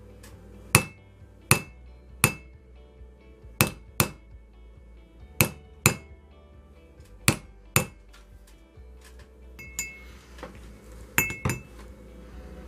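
Hammer striking a steel maker's-mark stamp into a hand-poured silver bar on rawhide pads: about a dozen sharp metallic strikes with a short ring, many in quick pairs, the last few lighter.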